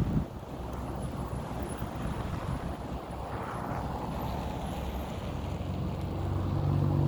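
Low street traffic rumble with wind noise on the microphone. Near the end, a vehicle engine's hum grows louder as it comes close.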